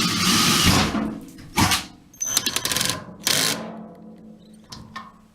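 Power drill boring a pilot hole through a 5/8 inch aluminum spacer, run in short bursts: a long burst of about a second at the start, then two shorter ones with a quick run of clicks between them.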